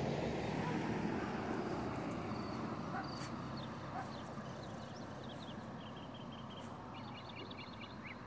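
Birds calling in quick series of short chirps, growing busier in the last few seconds, over a steady rushing background noise.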